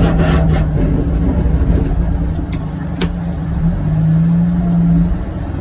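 John Deere Gator UVX 835M utility vehicle's engine and drivetrain running steadily under load while pushing a snow plow. The engine picks up slightly about four seconds in, then eases back, and there is a single click about three seconds in.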